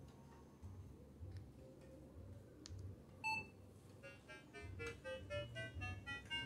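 Minelab Vanquish 340 metal detector powering up: a single short beep about three seconds in, then a quick run of short electronic tones climbing in pitch, its start-up tune.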